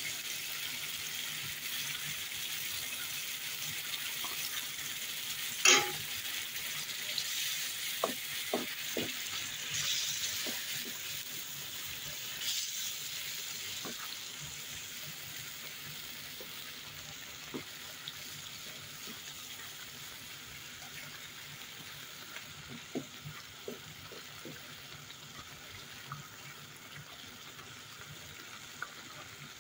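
Onion and spice sauce with white beans sizzling in a wide frying pan while a wooden spoon stirs it, scraping and tapping against the pan. There is one sharp knock about six seconds in, and the sizzle slowly dies down.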